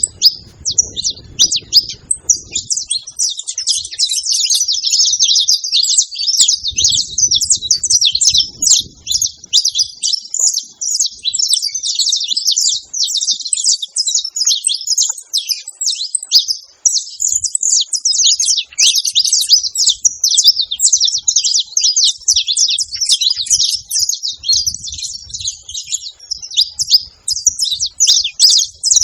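Saffron finches chirping and trilling without pause, a dense stream of quick, high notes.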